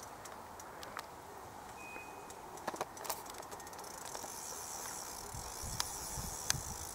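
Fixed-spool fishing reel being worked while a hooked common carp is played on a bent rod: scattered sharp clicks, then a steady high whirr from about four seconds in.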